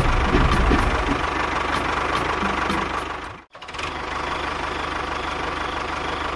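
An engine-like mechanical running sound, steady apart from a sudden brief drop-out about halfway through, after which it carries on.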